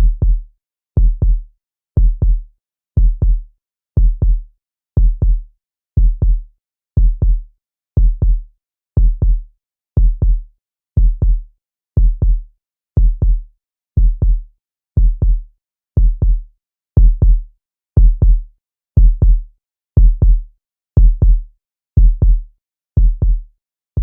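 Heartbeat sound effect: a steady double thump, lub-dub, about once a second, low-pitched, with silence between beats.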